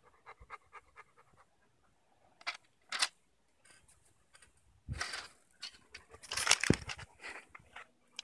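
Large dog panting quickly, about five breaths a second, then a couple of short sharp sounds. From about five seconds in come heavy thuds and rustling as it flops onto the trampoline mat and rolls on its back, the loudest thud near the end.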